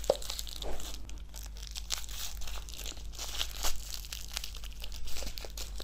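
A plastic lollipop wrapper crinkling and tearing in small, irregular crackles as it is peeled off candy that has stuck to it.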